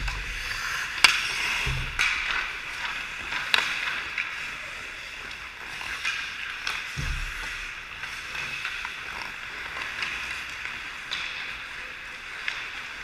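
Hockey skates scraping and carving on rink ice, with sharp clacks of sticks and puck and a couple of heavy thuds close to the goal-mounted camera.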